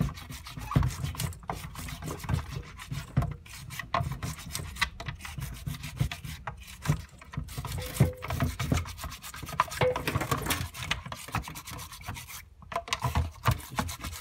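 Small bottle brush scrubbing round and round inside the plastic ports of a Dyson DC41 cyclone assembly: a quick, irregular scratchy rubbing with small knocks of the brush against the plastic.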